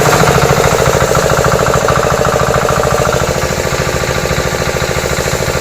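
High-pressure washer pump running steadily, with a fast, even pulsing rattle.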